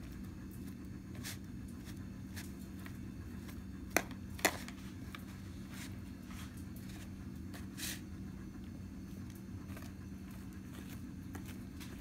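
Fingers sifting through loose substrate in a plastic cup, making faint rustling and scattered ticks. Two sharp clicks come about four seconds in, over a steady low hum.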